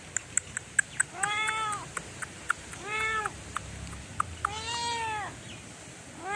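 Domestic cat meowing three times, each meow rising and then falling in pitch, with a fourth starting at the very end. A run of sharp clicks, about four a second, comes in the first two and a half seconds.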